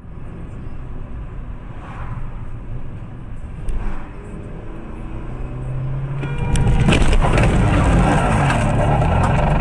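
Car driving with steady road and engine rumble heard through a dashcam. About six and a half seconds in, it grows into a much louder, rough noise with several sharp knocks.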